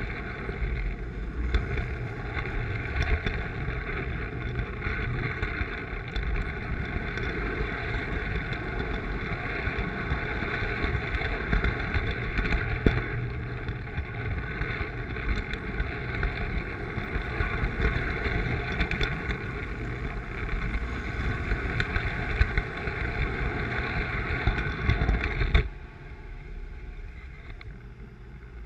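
Lionel toy train running on three-rail metal track, heard from a camera riding on it: a steady rumble and rattle of wheels on the rails with scattered clicks. The noise drops sharply about 26 seconds in, leaving a quieter hum.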